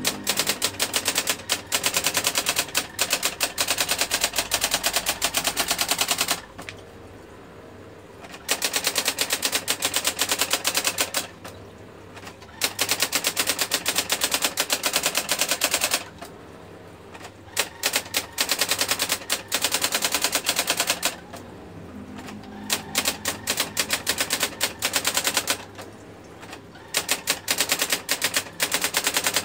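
Brother GX 6750 electric typewriter printing, a fast run of sharp strikes. The strikes come in bursts of a few seconds, broken by short pauses about every four or five seconds.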